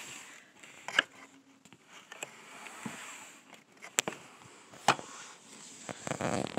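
Handling noise from a phone being picked up and moved about: a few sharp knocks and clicks, with a short rustle near the end.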